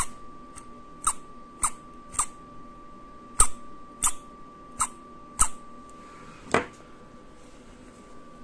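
Small brushed DC motor's shaft twisted by hand, giving a run of short, sharp clicks or squeaks about every half second, about nine in all: the stiff, squeaky shaft of a motor needing repair. A duller knock comes about six and a half seconds in.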